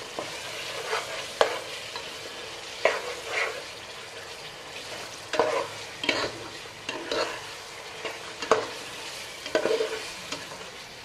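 A spatula stirs and scrapes raw chicken pieces through a sizzling tomato-and-spice masala in a non-stick pot. Irregular scraping strokes sound over a steady frying sizzle as the meat is fried down (kosha) in the masala.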